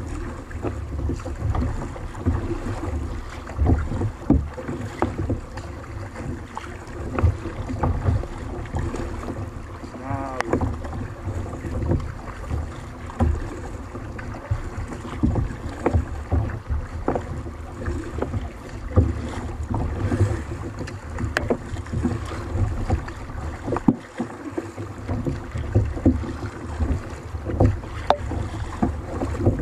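Water slapping and lapping against a fishing kayak's hull, with irregular knocks and wind buffeting the microphone.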